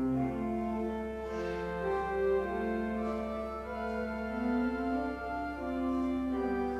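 Organ playing slow, held chords, the notes sustained and changing every second or so.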